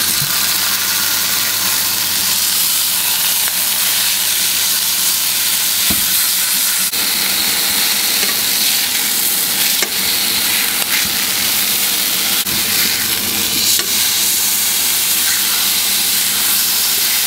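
Beef tenderloin steaks searing in a frying pan on high heat: a steady sizzling hiss that starts suddenly as the meat hits the hot pan. A few light clicks of a fork against the pan.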